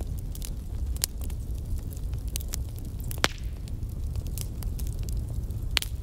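Bonfire burning: a steady low rumble of flames with irregular sharp crackles and pops, the loudest a little after three seconds in.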